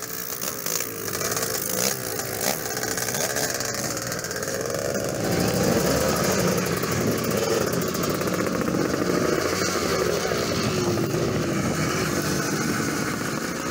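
Several vintage motocross motorcycle engines running together, their pitch rising and falling as they idle and are revved.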